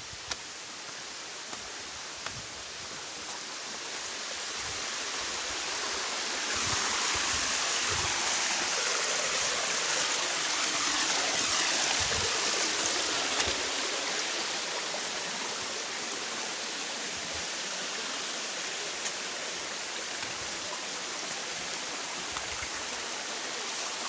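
Rushing water, a steady hiss that swells louder a few seconds in, is loudest around the middle, then eases off a little.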